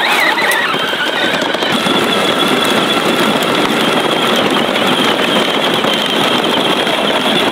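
Battery-powered John Deere ride-on toy tractor driving: a steady electric motor and gearbox whine, with a high tone held on top, over the rumble of its plastic wheels on gravel and dirt.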